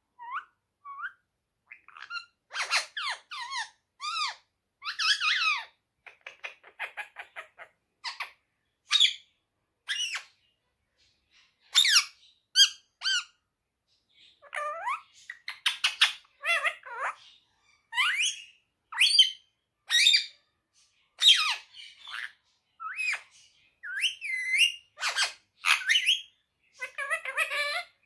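Indian ringneck parrot calling and chattering: a long string of short squawks, whistles and sliding chirps, one after another with brief gaps, some rising or falling in pitch and a few wavering.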